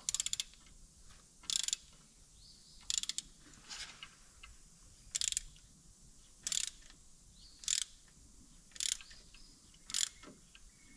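Ratchet wrench on a long extension turning a thread tap into a freshly drilled hole in a Jeep M210/M220 axle housing: short bursts of rapid pawl clicks, about nine of them, roughly one every second and a quarter, one per back stroke. The tap has not yet bitten for lack of downward force.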